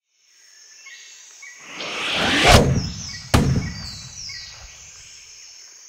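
Logo intro sound effect over birdsong: a whoosh swells for about a second into a deep hit, followed less than a second later by a second sharp hit that rings on and fades.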